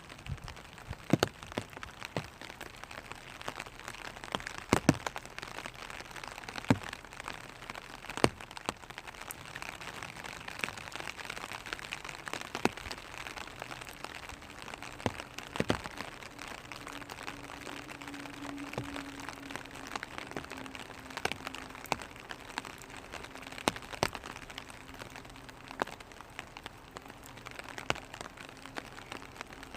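Rain falling on a clear plastic umbrella: a steady patter with louder single drops tapping sharply on the canopy at irregular intervals.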